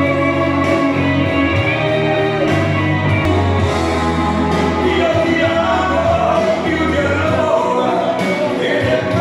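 Dance music with singing over a steady bass line and guitar, played loud over a hall sound system.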